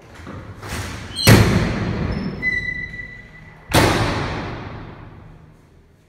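Two heavy cinematic boom hits: a short rising whoosh leads into the first about a second in, and the second comes near the middle. Each rings on with a long slowly fading tail, and a thin high steady tone sounds between them.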